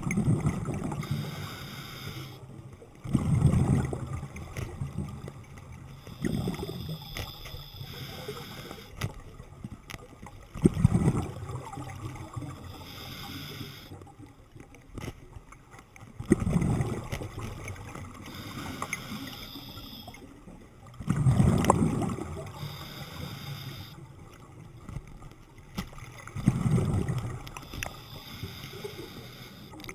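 Scuba diver breathing underwater through a regulator: a rumbling gush of exhaled bubbles about every four to five seconds, seven in all, with a fainter hiss of inhalation between them.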